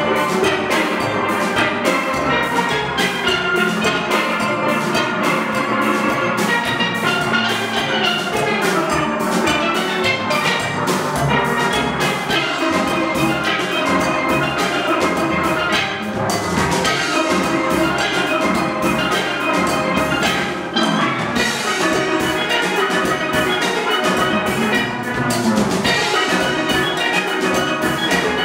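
Steel pan band playing: many pans struck in fast runs of bright ringing notes over a steady beat from a drum kit.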